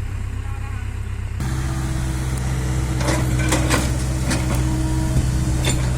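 Bulldozer's diesel engine running steadily, getting louder and fuller about a second and a half in, with a few sharp knocks in the middle and near the end.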